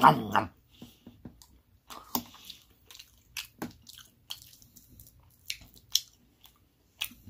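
Close-up chewing and wet mouth clicks of someone eating meatloaf, with scattered sharp clicks of a fork against the plate as he cuts off the next bite. A brief voiced sound comes right at the start.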